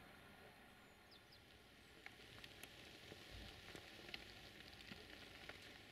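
Near silence: faint outdoor ambience, with scattered faint ticks and crackles from about two seconds in.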